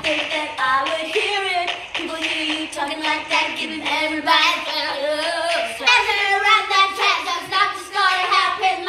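A woman and a young girl singing loudly together, a playful sung-along pop chorus with their voices rising and falling.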